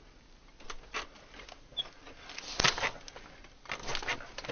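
A few scattered knocks and rustles, the loudest about two and a half seconds in and a short cluster near the end.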